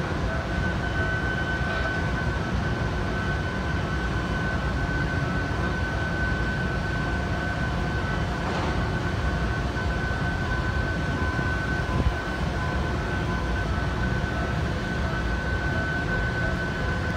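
Giant shipyard gantry crane running as it carries a ship hull section: a steady low mechanical rumble with a constant high-pitched whine. A single knock sounds about twelve seconds in.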